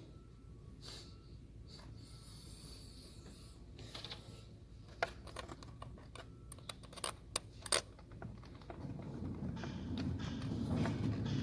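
Light clicks and taps of hand tools and parts being handled, bunched between about five and eight seconds in, with a low rumbling noise building near the end.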